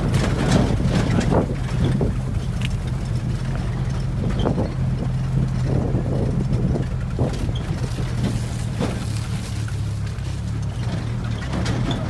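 A vehicle engine running at a steady low drone while moving, with wind buffeting the microphone and a few brief knocks.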